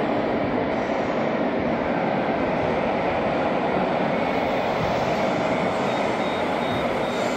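Steady mechanical rumble and whir of radio-controlled scale model trucks and a model wheel loader driving around.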